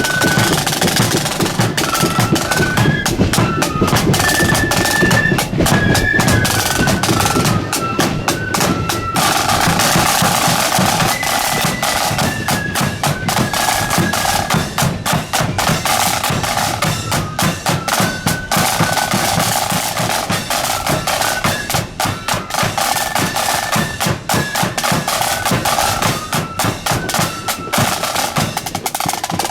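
Marching band playing a tune: a high melody stepping up and down over fast snare drumming and a bass drum beat. The drumming gets busier, with rolls, about nine seconds in.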